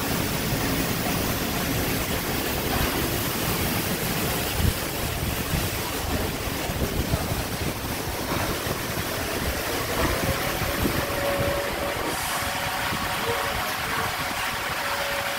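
Automatic car wash running: a sheet foamer pouring a curtain of foam over a car while water sprays and splashes, a steady rush of water. A faint steady whine joins in about halfway through, with a few light knocks.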